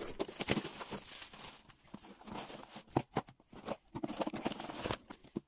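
Cardboard Pokémon TCG Elite Trainer Box being opened and its contents handled: irregular light knocks, taps and rustles.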